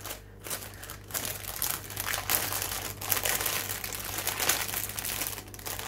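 Clear plastic bags crinkling and rustling continuously as a bundle of small plastic baggies of diamond painting drills is packed back into a larger plastic bag.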